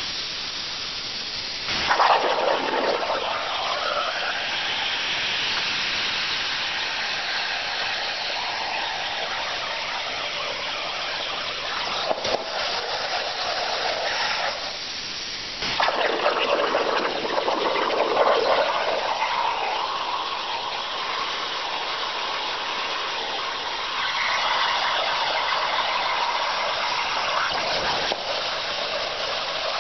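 CNC plasma cutter torch cutting 1/8-inch steel sheet over a water table: a steady loud hiss. It starts more sharply about two seconds in, breaks off briefly a little before halfway, and starts again.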